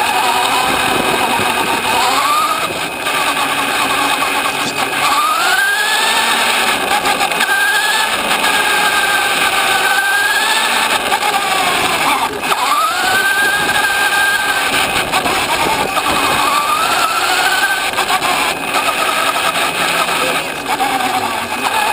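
Radio-controlled off-road car's motor and drivetrain whining, the pitch rising and falling again and again as it speeds up and slows down, over a steady rushing noise.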